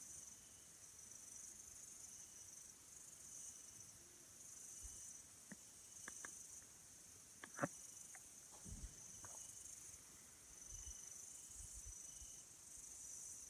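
Faint chorus of night insects: a high-pitched chirring that swells and fades unevenly, with a few faint clicks near the middle.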